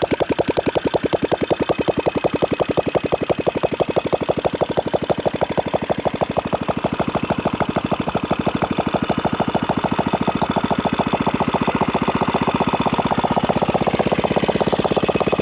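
AWO Simson 425 Touren's 250 cc single-cylinder four-stroke engine, out of its frame on a stand, running at a steady idle with an even, rapid firing beat.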